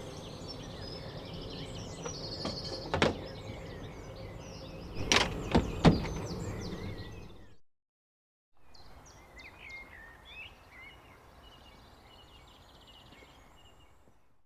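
Small birds chirping and twittering in open-air ambience. A sharp knock comes about three seconds in and three more close together about five to six seconds in, the loudest sounds here. A brief cut to silence falls just past halfway.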